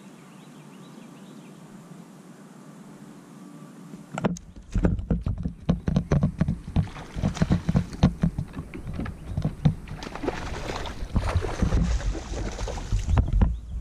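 Sounds of a fishing kayak: a quiet steady hiss, then about four seconds in a sudden run of irregular knocks and bumps with a low rumble, which keeps going.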